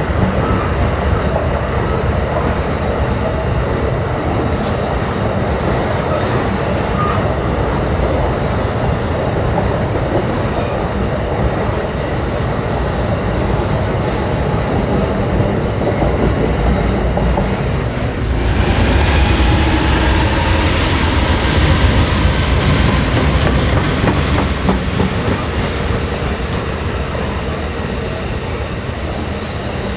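Amtrak Superliner passenger cars rolling past, steel wheels running on the rails with a steady rumble and some clicking. About 18 seconds in the sound turns louder and brighter, with faint wheel squeal from the curve.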